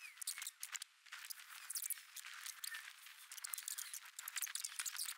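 Faint handling noise of hands working on the car's plastic interior trim: many small irregular clicks, taps and rustles.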